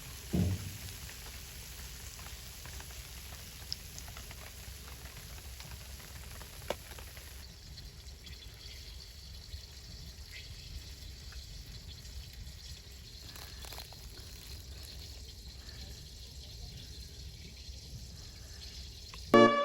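Soft steady hiss of food cooking over a wood fire, with a few faint crackles. A brief falling tone stands out about half a second in.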